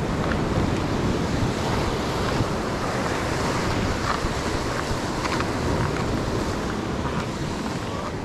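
Ocean surf washing in a steady rush, with wind buffeting the microphone.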